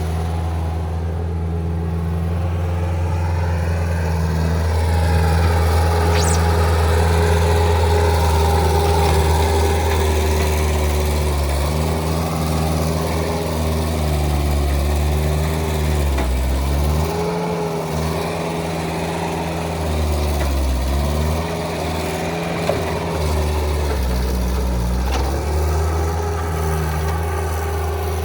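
Bobcat T190 skid steer's diesel engine running steadily, its pitch sagging and recovering several times in the second half as it is loaded while working loose material.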